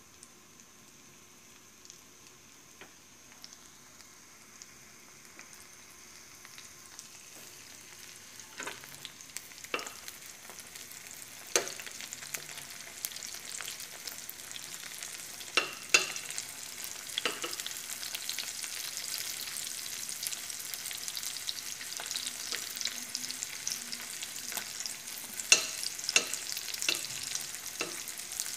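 Hot dogs frying in a pan. The sizzle starts faint and grows steadily louder, with sharp clinks and scrapes of a metal spoon against the pan as they are turned.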